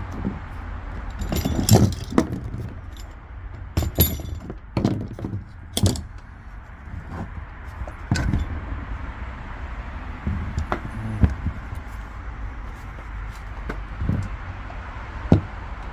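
Small metal and plastic parts and tools being moved about while rummaging for a loose screw: a scatter of clicks, clinks and knocks, over a steady low hum.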